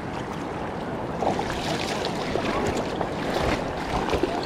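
Mountain stream water rushing over shallow riffles, a steady hiss, with a few faint clicks and splashes.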